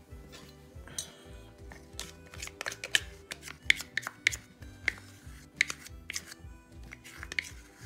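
A metal spoon scraping and clicking against a plastic measuring cup and a glass bowl as thick condensed milk is scraped out, a quick run of sharp ticks starting about two seconds in. Soft background music with a steady beat plays underneath.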